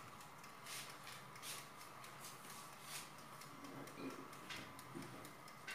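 Faint, scattered soft clicks and rustles of plastic cookie cutters being pressed into soft sablé dough on parchment paper, about half a dozen over a few seconds.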